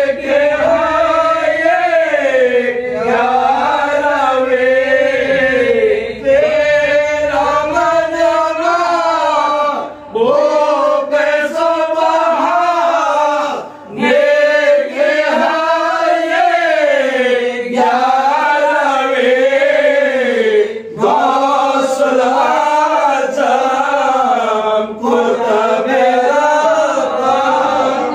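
Male voices chanting an Islamic devotional recitation in long melodic phrases, with short breaks every few seconds.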